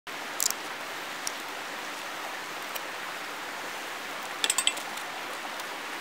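Steady rushing of a mountain stream, with a single sharp click about half a second in and a quick run of clicks a little after two-thirds of the way through.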